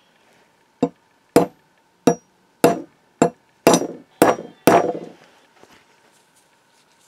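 Hammer blows on a steel pin punch, driving a stubborn pin out of a cast iron press frame: eight sharp metallic strikes about two a second, the last few ringing on longer.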